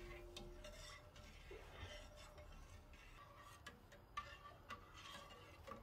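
Near silence, with a few faint ticks of a metal spoon against a stainless steel pot while sugar and water are stirred until the sugar dissolves.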